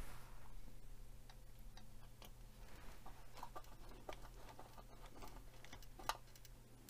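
Faint, irregular small clicks and ticks of a small screwdriver turning a tiny screw into a plastic model-car part.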